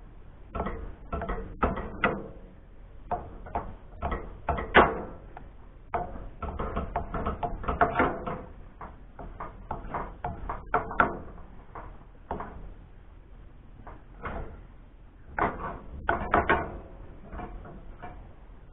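Metal tongs clicking, knocking and scraping against a frying pan on a camp stove as a slab of meat is turned and pressed, in an irregular run of clatters with brief pauses.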